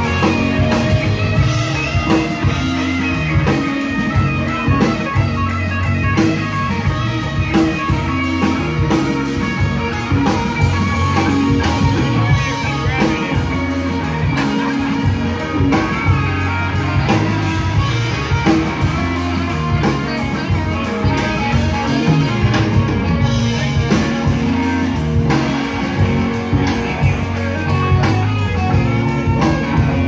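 Live rock band playing loudly: two electric guitars, an electric bass guitar and a drum kit, with a steady drumbeat under the guitars.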